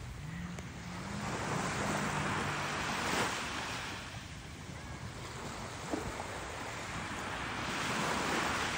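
Surf washing up onto a sandy beach, the wash swelling and fading twice, about five seconds apart, with some wind on the microphone.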